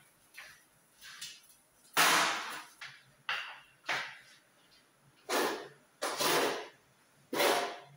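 Hand wiping a kitchen window pane in a series of short, irregular rubbing strokes, about seven of them.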